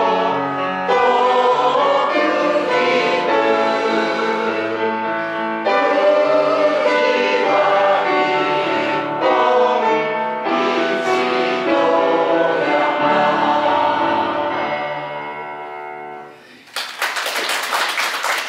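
A group of older men and women singing a Japanese song together in unison to piano accompaniment, the last note fading near the end. It is followed by a short burst of applause.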